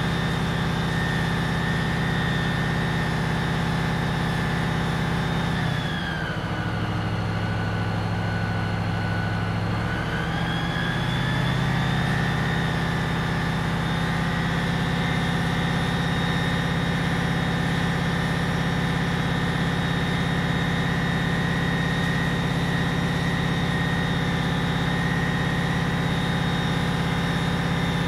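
Fire engine running steadily with a high whine riding over the engine. About six seconds in, the engine speed and whine drop for a few seconds, then rise back to the earlier steady speed.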